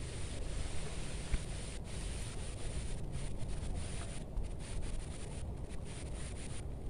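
Faint rubbing and handling sounds of hands working soft bait from a small pack onto a fishing hook, with a few light ticks, over a steady low outdoor rumble.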